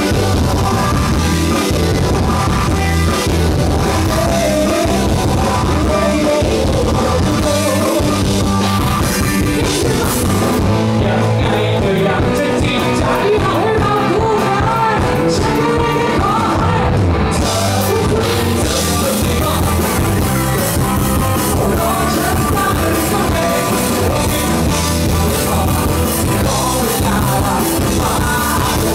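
Live rock band with a singer playing loudly through a concert PA. The bright high end drops out for about six seconds midway, then comes back.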